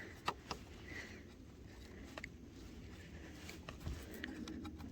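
A few faint, sharp clicks and light knocks of hand tools and metal parts as a part is refitted on a Predator portable generator.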